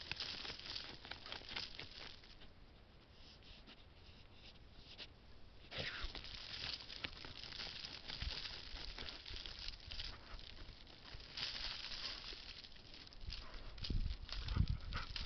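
Dog snuffling and rooting with its nose in loose dirt: uneven spurts of scratchy rustling and crunching soil, with a few low thumps near the end.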